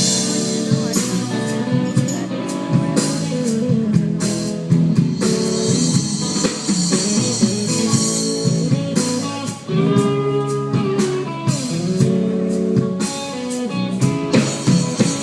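Live band music: guitar playing melodic lines, with a run of bent, gliding notes about ten seconds in, over drums with steady cymbal hits.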